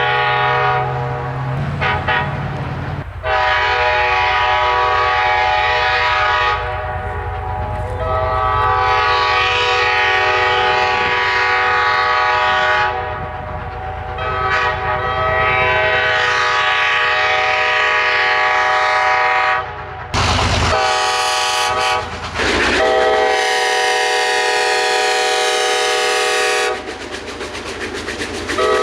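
Locomotive multi-chime air horn sounding a series of long blasts with a short one about three-quarters of the way through, each blast a steady chord, over the low rumble of the passing train.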